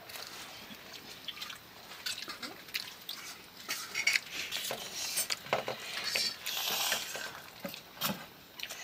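Eating noodles with a metal spoon from a metal plate: the spoon clinking and scraping on the plate in short, irregular strokes, mixed with wet slurping and chewing.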